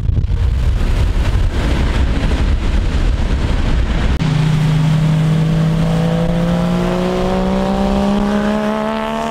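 Car engine and rushing road noise, then an abrupt change about four seconds in to a steady engine note that rises slowly in pitch as the car gathers speed gently.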